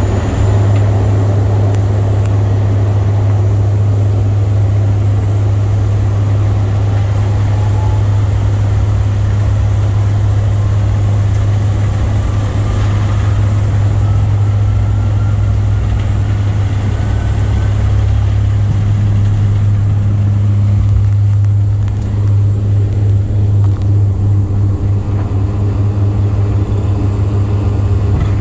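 Airplane engines running during departure: a loud, steady low rumble, with a faint rising whine about a third of the way in.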